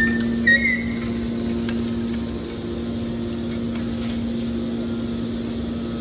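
Hydraulic scrap-metal baler running with a steady hum while its ejection ram pushes a pressed bale of metal turnings out of the chamber. A few brief high squeaks sound near the start.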